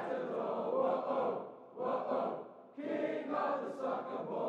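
A large crowd of football fans singing a chant together, muffled, in phrases of one to two seconds with short breaks between them.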